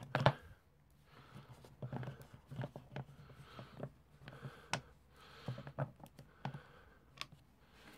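Scattered light clicks and short rustles of hand work: a screwdriver taking out the small screws of a Yamaha XJR1300's air filter housing, with the loose screws handled in the fingers.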